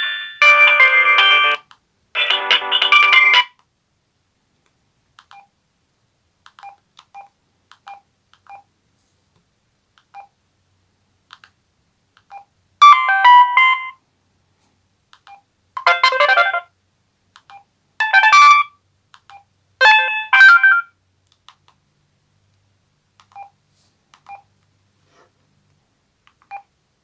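Samsung SGH-M140L mobile phone playing short polyphonic ringtone and alert-tone snippets through its small speaker. A tone ends about a second in, and another short one plays around two to three seconds in. After a gap of faint single beeps, four brief melodic clips sound in quick succession in the second half, followed by more faint beeps.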